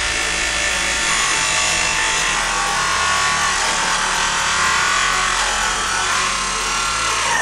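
Electric angle grinder with a cut-off disc cutting through a rusted metal part, too rusty to unbolt. It runs loud and steady under load, its whine wavering and dipping in pitch as the disc bites.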